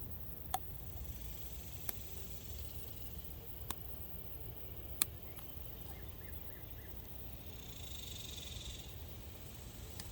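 Four sharp, separate clicks as a small pick and screwdriver work at a plastic fuel injector connector, prying up the terminal locking tab to free a metal terminal. They sound over a faint low rumble.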